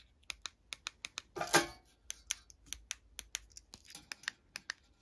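Plastic buttons on small key-fob remotes clicking as they are pressed over and over, quick uneven clicks about four a second. About a second and a half in there is one louder, short scrape as a remote is picked up off the metal surface.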